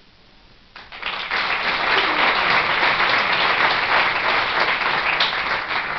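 Audience applauding, starting about a second in and beginning to die down near the end.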